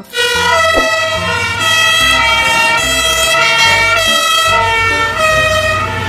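Fire engine's two-tone siren, stepping back and forth between two pitches, with the truck's engine rumbling underneath.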